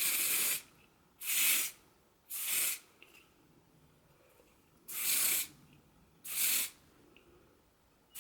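Ebin Wonder Lace Bond lace-melting spray being sprayed onto a wig's lace hairline in five short hissing bursts of about half a second each, with pauses between them.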